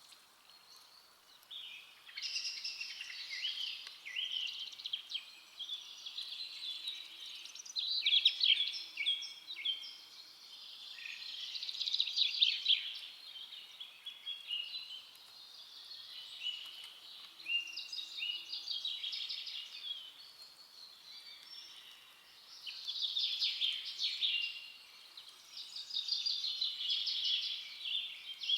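Songbirds singing in a forest, quick chirps and trills coming in bouts of a few seconds with short pauses between them.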